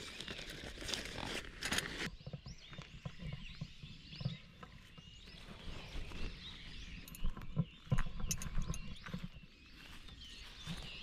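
Fabric rustling and handling knocks as a tent fly sheet is worked over a pop-up shelter, loudest in the first two seconds with a few sharper knocks later. Throughout, there is a background of many faint, wavering chirps.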